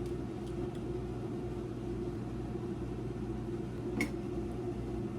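Steady hum of a running appliance, with one sharp click about four seconds in.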